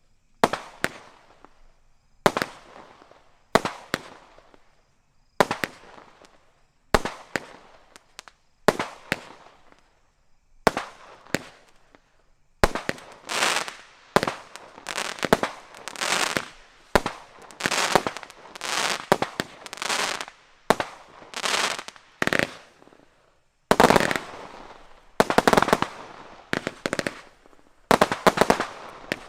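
Consumer fireworks going off in a series of sharp bangs, each trailing off. They come about once every second or so at first, then much closer together from about halfway, with a short gap before a last dense run.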